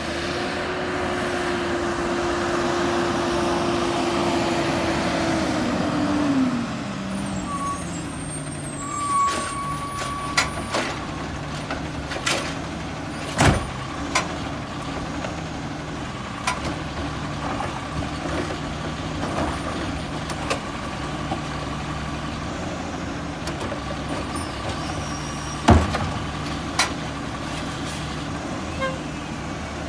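Garbage truck engine held at a raised speed, then dropping back to idle about six seconds in. Sharp metallic clanks and knocks sound over the idling engine, two of them louder than the rest.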